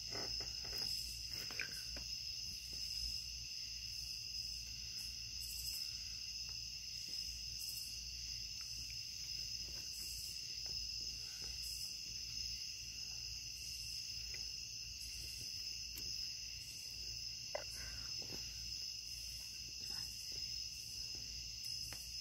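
Crickets chirping in a steady night chorus, a continuous high-pitched trill at two pitches, with a few faint clicks.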